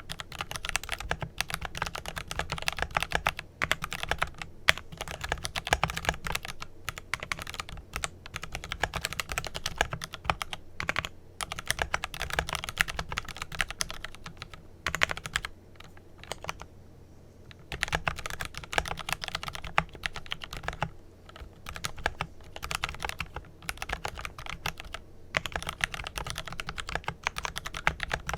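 Continuous fast typing on a Glorious GMMK Pro mechanical keyboard with lubed Kailh Pro Purple tactile switches and PBT keycaps, a rapid run of key clicks with a short pause about two-thirds of the way in.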